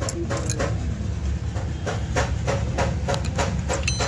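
An engine running at idle: a steady low rumble with a regular tick about three times a second.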